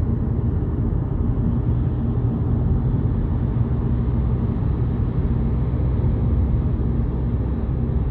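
Steady road and engine rumble heard from inside a VW Polo GTI's cabin while cruising at about 70 km/h, with a faint steady low hum running through it.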